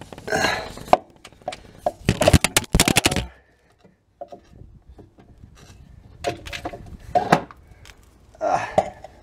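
Metal clicks, knocks and clatter from a golf cart's electric brake unit being handled and worked off its mount, in several short bursts with a brief near-silent gap in the middle.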